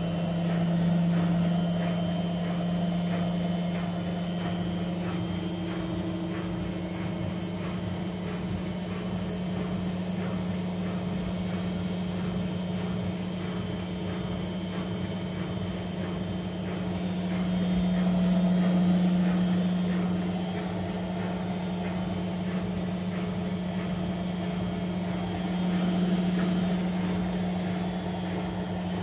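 Front-loading washing machine in its spin cycle: a steady motor whine over a low hum, swelling louder twice, with the drum turning smoothly and not rattling.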